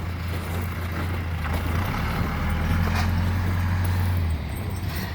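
Motor vehicle engine running at low speed, a steady low drone that grows stronger about two seconds in and eases off a little past four seconds.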